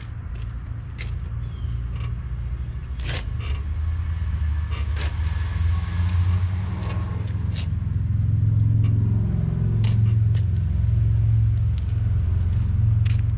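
A steady low rumble that grows louder over the first eight seconds or so and then holds, with a few sharp clicks and taps scattered through it.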